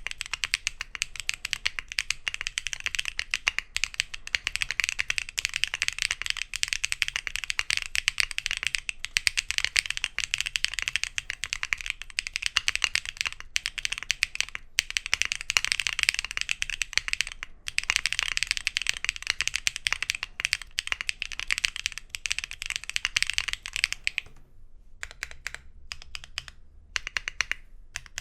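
Fast typing on a mechanical keyboard with Wuque Studio BigLucky tactile switches, factory-lubed with polycarbonate housings, mounted on a polypropylene (PP) plate: a dense stream of keystrokes and bottom-outs, thinning to a few scattered keystrokes about 24 seconds in.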